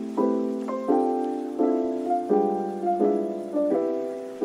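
Background music: soft piano chords struck about every three quarters of a second, each fading away before the next.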